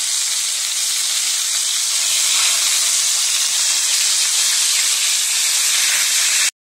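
Whole flour-coated roach frying in hot oil in a frying pan: a loud, steady sizzle as the crust forms on the second side. The sound cuts out for a moment near the end.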